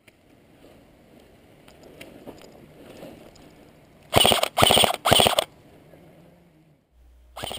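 Airsoft rifle firing three short rapid bursts just past the middle, each a quick string of shots, with a brief further sound near the end.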